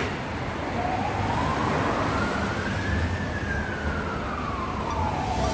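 A siren wailing once, its pitch rising slowly for about two seconds and then falling away, over a steady low background rumble. A sharp click comes right at the start.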